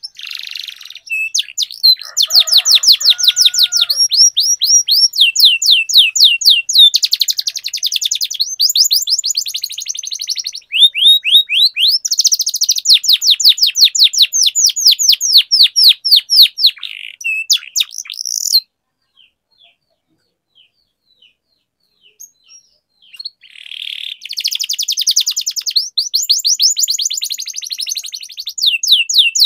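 A domestic canary singing in long, unbroken runs of fast repeated high trills, in full song. It falls silent for about five seconds past the middle, then starts again.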